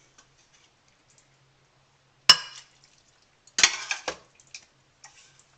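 A kitchen utensil clinking against a pot and the blender jar as soup liquid is ladled in: one sharp clink a couple of seconds in, then a short run of clinks and knocks a second or so later.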